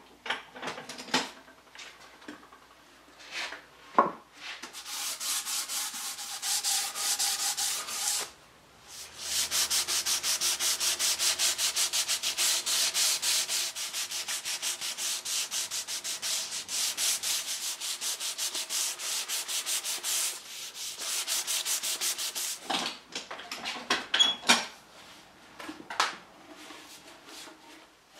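Sandpaper rubbed by hand quickly back and forth over the wooden edge of a tabletop, a fast, even rasping hiss. It starts about four seconds in, pauses briefly near eight seconds, then runs on to about twenty-two seconds. Scattered knocks of the wooden top being handled come before and after the sanding.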